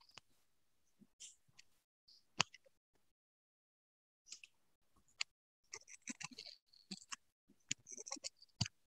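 Faint, scattered clicks and ticks over otherwise near-silent call audio, a single sharper click about two and a half seconds in and a loose run of small clicks in the second half.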